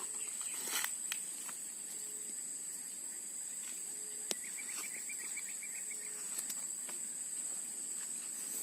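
Steady high-pitched drone of insects, with a short run of rapid high chirps about four and a half seconds in and a couple of faint clicks.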